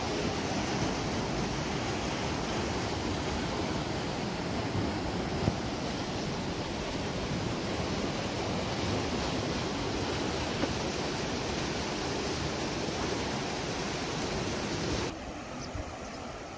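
River water rushing and churning through the open sluice gates of a dam, a steady, dense rush with one short knock about five seconds in. Near the end it drops suddenly to a quieter hiss.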